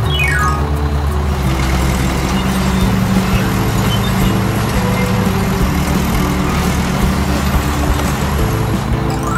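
A heavy vehicle's engine running steadily with a fast, even low chug, under background music; a quick falling run of notes opens it.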